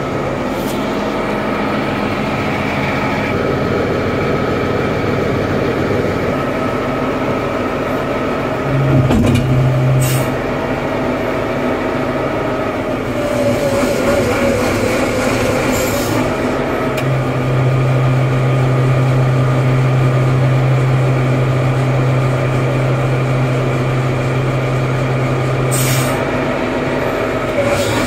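Detroit Diesel six-cylinder turbo diesel engine of a heavy forklift running, heard from inside the cab. Twice the note steps up into a strong low hum: briefly about nine seconds in, then for about nine seconds later on, while the mast hydraulics raise the carriage.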